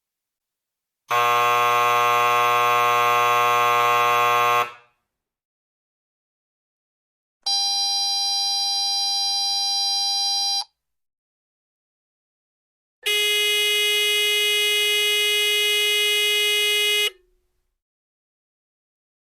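Three different electric doorbell buzzers, one after another. Each gives one steady, unbroken buzz of about three to four seconds, with a silent pause between them. The first is low and coarse, the second higher and thinner, and the third sits in between.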